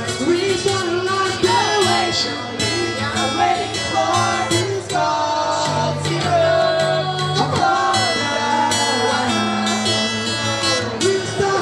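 Acoustic guitar strummed under a singing voice, with a higher second voice joining about five seconds in: a two-voice acoustic performance.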